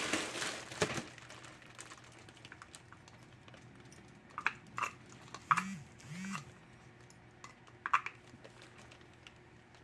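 Light clicks and rustling of small plastic packaging being picked up and handled, busiest in the first second. A few scattered sharp clicks follow around the middle and about eight seconds in, with two brief faint low tones near the middle.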